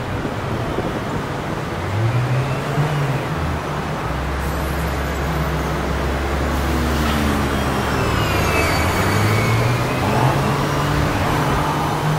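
Three-axle double-decker bus (New World First Bus) driving through a turn over steady city traffic noise, its diesel engine note rising and falling several times as it pulls across the junction.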